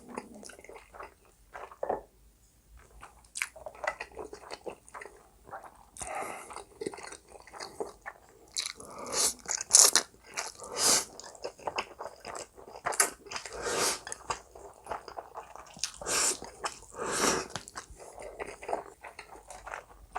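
Close-miked eating sounds of spicy stir-fried noodles and Spam: irregular biting and chewing with wet mouth noises and crunchy bites, with several louder bursts in the second half.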